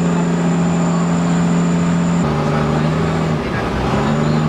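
Engine of a motorized outrigger boat running with a steady, loud drone. About halfway through its pitch steps down a little and wavers briefly before settling again.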